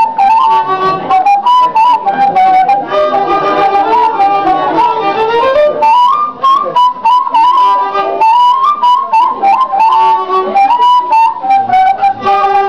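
Violin and end-blown cane flute (ney) playing a melody together, a line of quick stepping notes that carries on without a break.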